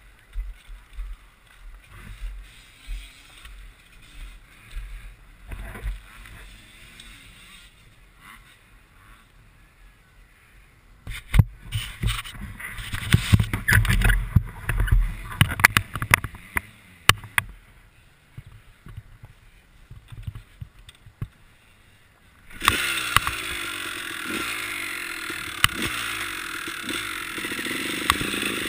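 Knocks and clatter around a Honda dirt bike, loudest in the middle stretch, then the bike's engine starts suddenly about three-quarters through and runs steadily as it rolls off.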